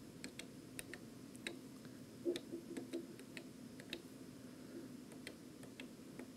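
Front-panel keypad buttons of a Yamaha TX802 FM synth module clicking lightly as they are pressed one after another, a few presses a second, during its service-mode switch test.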